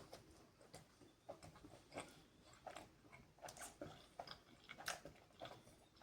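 Faint chewing of a mouthful of bade ke paye (beef trotters curry), with irregular short mouth clicks and smacks about two a second.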